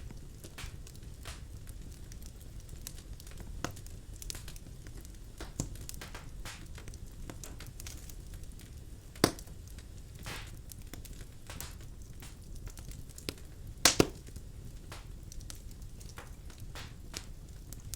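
Birch logs burning in a fireplace, crackling with irregular sharp pops over a low steady rumble. The loudest pop comes about halfway through and a double pop about three-quarters in.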